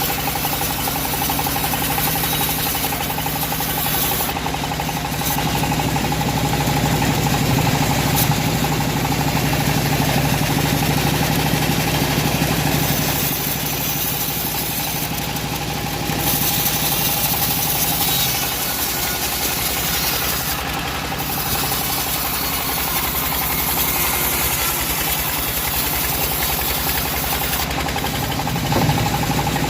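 Band sawmill running: a loud, steady machine drone with a constant hum, easing and swelling slightly as it works.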